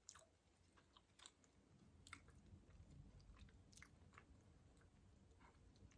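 Faint chewing, with scattered soft, crisp clicks.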